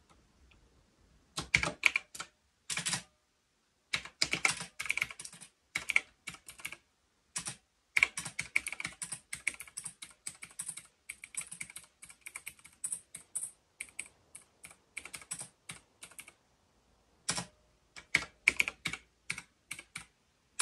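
Typing on a Knewkey (Rymek) typewriter-style mechanical keyboard: rapid runs of clicking keystrokes, broken by short pauses about a second in, around three seconds in and near sixteen seconds.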